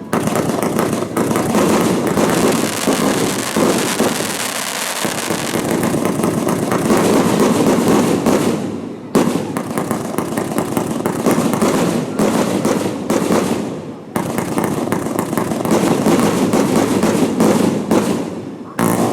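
Set-piece fireworks (shikake hanabi) burning, a loud, dense crackling and hissing full of rapid pops. It dips briefly about 9 and 14 seconds in, then picks up again.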